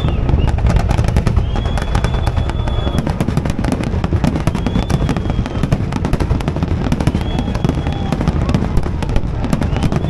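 Fireworks display: a dense, continuous run of rapid crackles and bangs over a steady low rumble, with high whistles recurring every couple of seconds.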